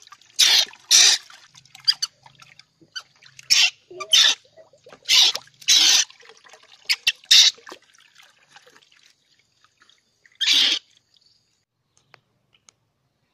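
Water splashing in a tub as a baby monkey is washed by hand: a series of short, loud splashes, most in the first eight seconds and one more near the end.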